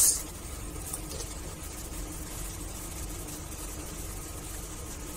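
Steady low background hum, with one faint click about a second in.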